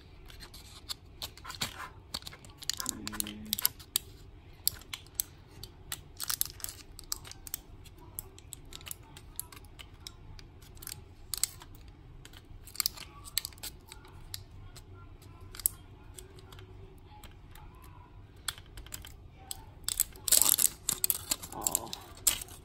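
A thin foil blind-pack wrapper being peeled and torn open by hand, with scattered crinkles and crackles, growing into a denser run of crackling near the end.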